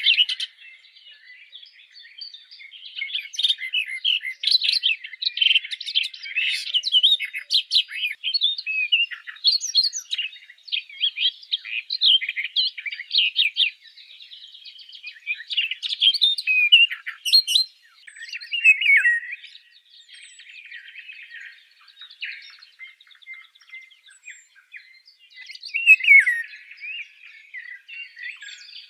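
Several birds chirping and singing at once: a dense chorus of quick chirps and short whistled phrases, thinning out for a few seconds past the middle before picking up again near the end.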